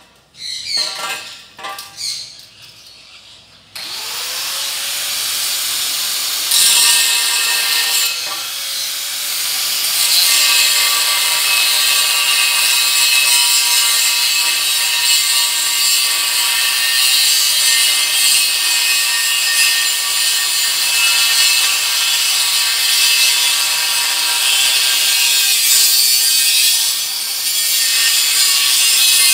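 Electric angle grinder grinding steel: a few short touches of the disc at first, then about four seconds in the motor spins up with a rising whine and settles into a loud, steady grinding hiss against the metal, with a brief dip near the end.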